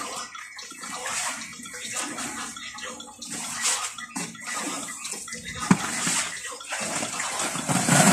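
Water splashing and sloshing in the bottom of a hand-dug well, coming in uneven surges.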